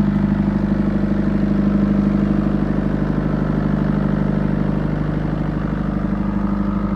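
Excavator's diesel engine running steadily at close range, with a slight swell in level about two seconds in.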